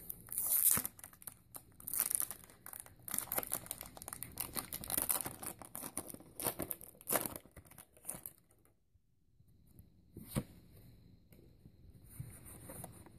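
Foil wrapper of a Pokémon trading card booster pack being torn open and crinkled for about eight seconds, then a single sharp click and faint handling of the cards.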